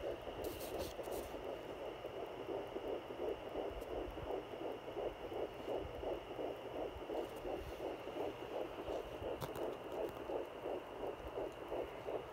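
Fetal heartbeat through a handheld fetal Doppler's speaker: a fast, even pulse of about three beats a second. A faint steady high tone sits behind it.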